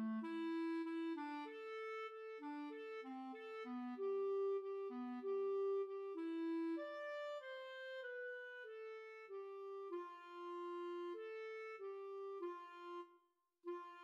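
A single B-flat clarinet playing a lower accompaniment line, one note at a time at a steady, moderate tempo, breaking off briefly near the end at a rest.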